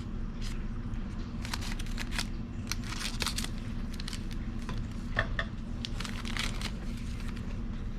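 Trading card pack wrapper being torn open and crinkled, then cards handled: a scatter of short crackles and rustles over a steady low hum.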